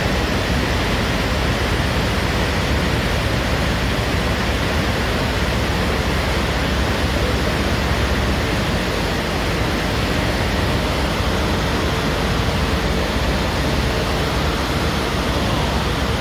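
Mountain torrent in flood, thick with mud and debris, rushing through its channel: a loud, steady rushing with a deep rumble underneath.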